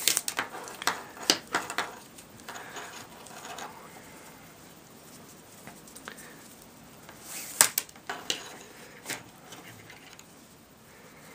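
Handling noise from paracord being pulled and tightened into Solomon bar stitches by hand: soft rustling with scattered clicks and taps, the loudest a sharp click about seven and a half seconds in.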